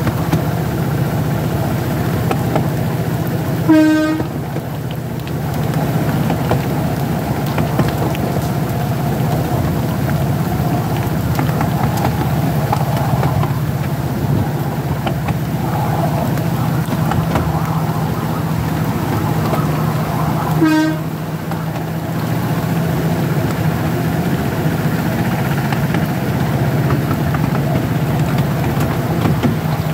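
Small 0-4-4 diesel-hydraulic miniature railway locomotive running steadily along the track, its engine giving an even drone. It sounds two short horn toots, about four seconds in and again some seventeen seconds later.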